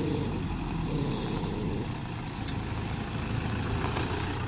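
Toyota Hilux pickup camper driving slowly up close on a dirt track, its engine running steadily at low revs.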